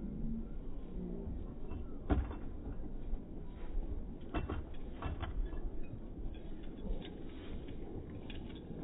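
A few sharp knocks and thumps of a border collie's paws striking the planks of an agility dog walk as it runs up and along it, the loudest about two seconds in, over a steady low rumble.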